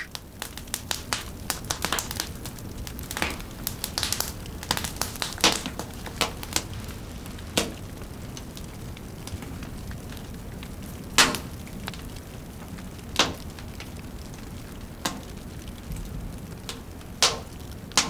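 Alder-wood smoking fire crackling: irregular sharp pops over a low steady hiss. The pops come thick in the first few seconds, then fewer and louder single ones follow.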